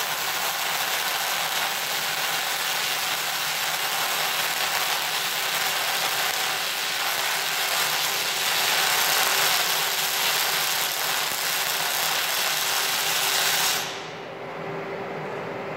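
MIG welding arc crackling steadily as a bead is run on a steel I-beam, stopping near the end and leaving a faint low hum.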